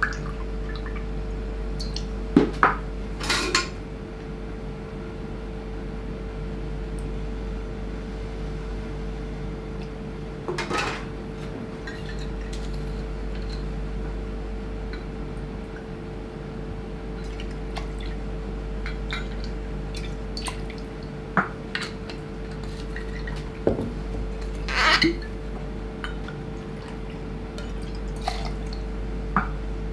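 Stainless steel bar tools in use: a jigger and shaker tins clinking and knocking a few times, with brief pours of liquid as ingredients are measured into the shaker, over a steady low hum.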